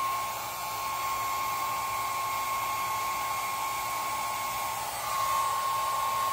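Cheap small hand-held hair dryer running steadily: a rushing hiss of air with a constant high motor whine, blowing on a canvas to dry wet paint. It gets a little louder about five seconds in.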